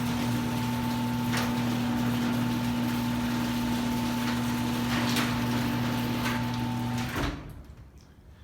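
A 2002 Genie Pro screw-drive garage door opener runs steadily with a hum, driving the door closed. About seven seconds in it stops abruptly with a short clunk as the door reaches its close limit.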